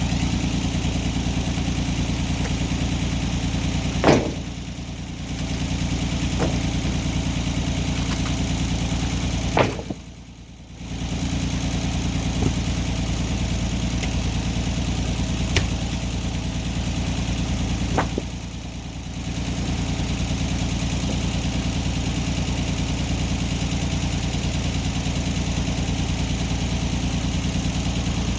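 Antique sawmill's engine running steadily. Three loud sharp cracks come about 4, 9.5 and 18 seconds in, with a few fainter clicks between them.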